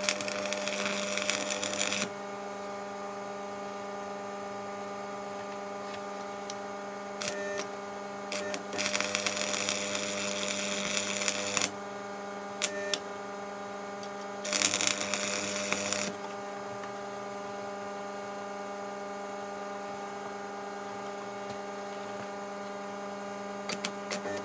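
Electric welder laying short welds on a cracked motorcycle frame part: three bursts of arc crackle, the first and last about one to two seconds, the middle one about three, over a steady electrical hum. A few light clicks near the end.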